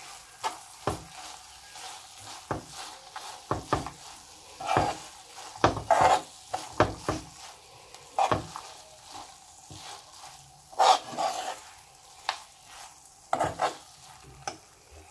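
A spoon stirring thick beetroot halwa in a frying pan, with irregular scrapes and knocks against the pan over the faint sizzle of ghee.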